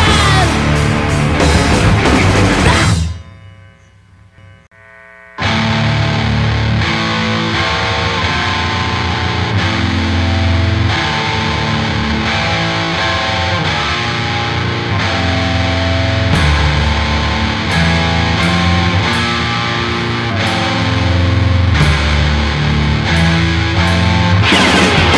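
Crust-punk band recording: one song ends, its sound dying away about three seconds in. After a short gap of about two seconds the next song starts abruptly with distorted electric guitar and full band.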